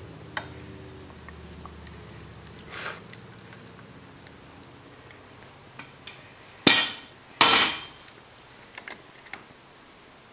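Manual lever espresso maker being worked by hand: small metallic clicks from the aluminium arms and mechanism, then two loud, harsh clanks close together about two-thirds of the way through.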